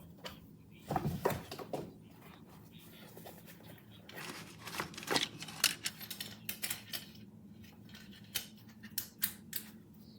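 Packaging and gear being handled by hand: irregular rustling, scraping and a run of sharp clicks over a faint steady hum.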